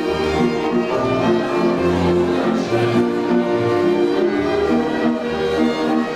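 Dance music played on bowed strings over a bass line that changes note about every half second.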